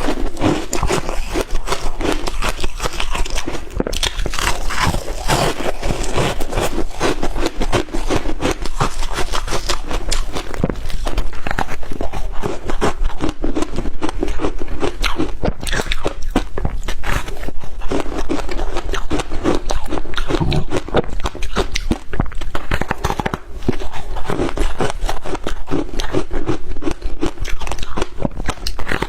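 Shaved ice being bitten and chewed close to the microphone: continuous loud crunching and crackling.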